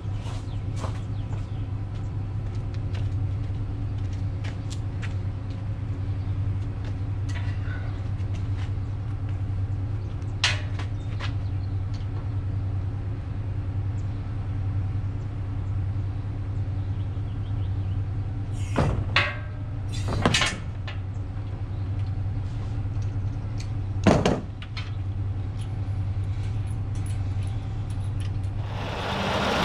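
A steady low mechanical hum with a handful of sharp knocks and clunks, the loudest about two thirds of the way in. Just before the end it gives way to a louder rushing noise.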